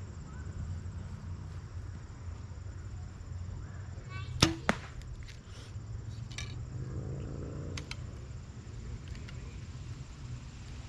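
Mathews V3 compound bow firing: a sharp crack as the string is released, then a second, weaker crack about a quarter second later as the arrow strikes the target.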